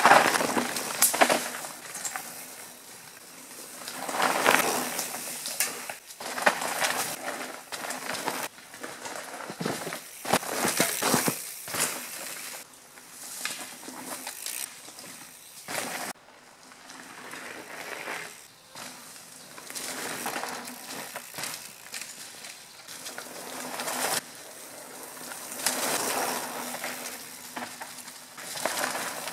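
Mountain bike tyres crunching over dry leaves and dirt as the bike passes, several times over. Each pass swells and fades, and some break off suddenly.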